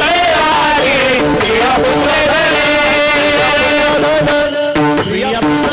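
Devotional kirtan music: voices singing a chanted refrain over steady held notes, with sharp percussion strikes near the end.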